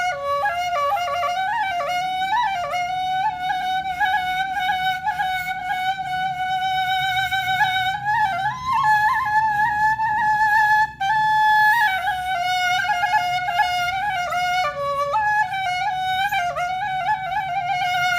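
Background music: a flute plays a slow, ornamented melody of long held notes with vibrato, in a traditional style.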